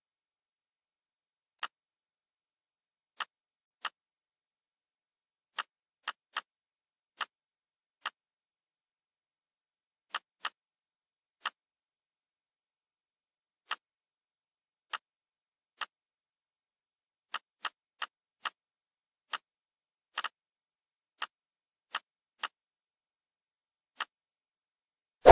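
Computer mouse clicks: about two dozen single clicks at irregular intervals, with dead silence between them.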